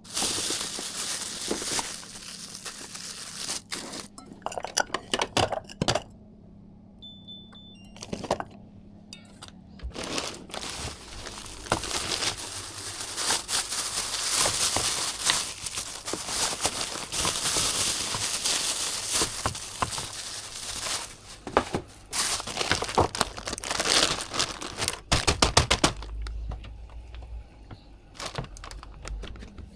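Plastic packaging crinkling and rustling as it is handled, with scattered sharp clicks and knocks.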